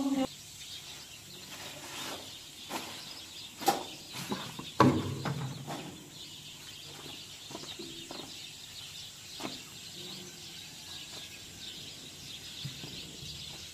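Birds chirping against a steady high hiss, with a few sharp knocks. The loudest knock comes about five seconds in.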